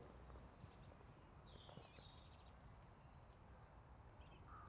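Near silence: faint outdoor ambience, with a few faint, high bird chirps around the middle.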